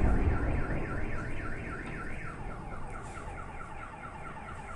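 Car alarm wailing in a fast repeating up-and-down pattern, about four sweeps a second. Under it, the low rumble of a blast dies away in the first second.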